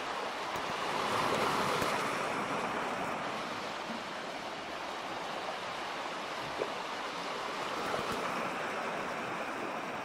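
Steady rush of moving water: a small waterfall splashing down a rock cliff into the sea, mixed with ocean surf, swelling slightly about a second in.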